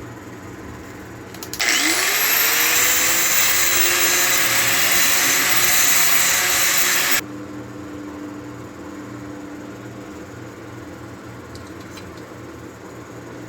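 A small electric power tool motor spins up with a rising whine about a second and a half in, runs loud and steady for about five seconds, then cuts off suddenly.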